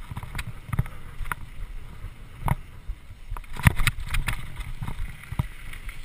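Mountain bike riding fast over a rough dirt trail: a steady low rumble of wind on the microphone and tyres on dirt, broken by sharp knocks and rattles as the bike hits bumps, the loudest about three and a half seconds in.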